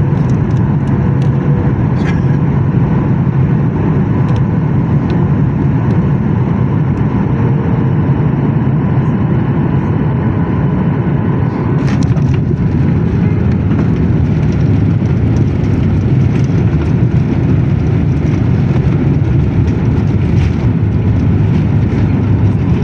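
Boeing 737-800 jet noise during landing, a loud steady low rumble with a faint steady hum over it.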